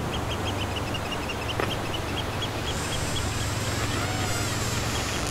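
Tropical shore ambience: a steady wash of surf with a bird calling in short, rapid repeated chirps, about four a second, that fade out toward the end. About three seconds in, a high shimmering sound swells in over it.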